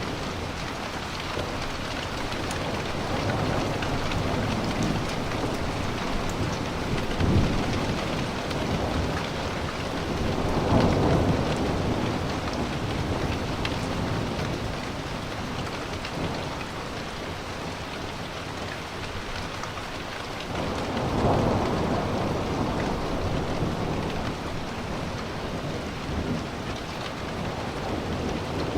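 Steady rain falling during a thunderstorm, with rolling thunder swelling up and fading twice, about a third of the way in and again about two thirds in.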